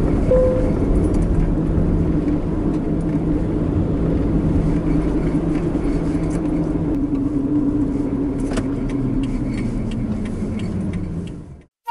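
Camping car driving on a road, heard from inside the cab: a steady engine drone and tyre noise, with small rattles and clicks from the cabin. A short beep sounds just after the start, and the sound fades out just before the end.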